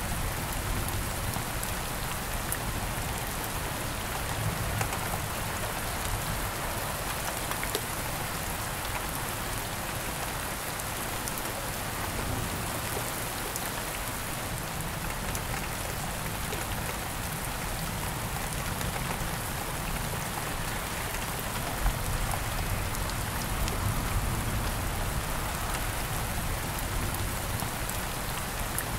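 Steady rain falling: a constant even hiss with scattered sharper taps of individual drops.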